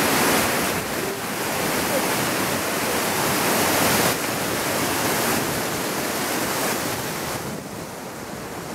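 River rapids rushing over rocks: a steady noise of white water, growing somewhat quieter near the end.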